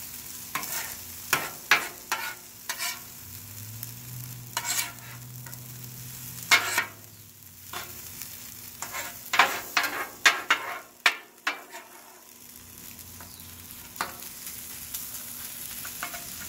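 Two metal spatulas scraping and clacking on a hot flat-top griddle as fried rice is chopped and tossed, with irregular sharp strikes over a steady sizzle.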